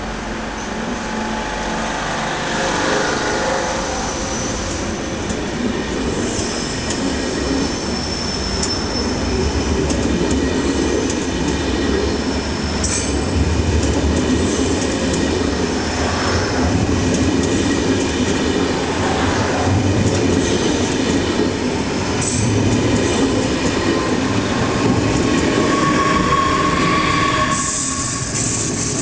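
ÖBB Railjet passenger coaches rolling slowly past on departure: a steady rumble of wheels on rail, with a high wheel squeal coming and going and a few sharp clacks over rail joints.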